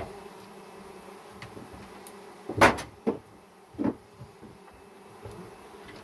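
Honeybees buzzing steadily around a honey extraction room, broken by three sharp knocks between about two and a half and four seconds in, the first the loudest, as wooden honeycomb frames are handled at a stainless steel honey extractor.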